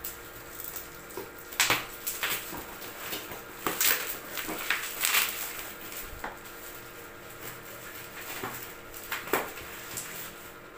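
Plastic parcel wrapping rustling and crinkling in irregular bursts as it is pulled open by hand. The loudest handling comes in the first half.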